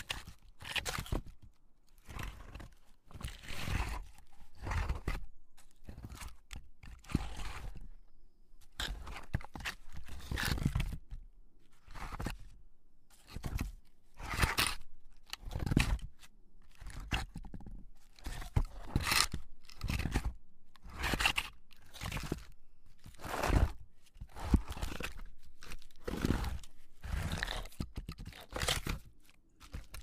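Wooden log scraping over a boulder in a long series of rough, irregular strokes, each up to about a second long, with short pauses between them.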